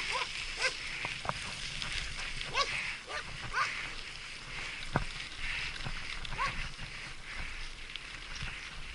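Mountain bike rattling and clicking over a rough forest trail, with short squeaks scattered through and a sharper knock about five seconds in.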